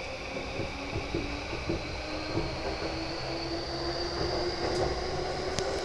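Inside a moving E235-series Yamanote Line electric train: a steady rumble of wheels on rail with scattered short clicks, under a faint electric motor whine that rises slowly in pitch as the train gathers speed.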